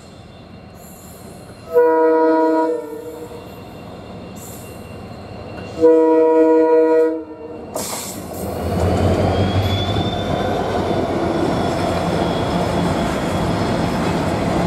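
WDG4 diesel locomotive's multi-tone horn sounding two blasts, each about a second long and a few seconds apart. After that, a freight train's wagons rolling past with a steady rumble of wheels on rail.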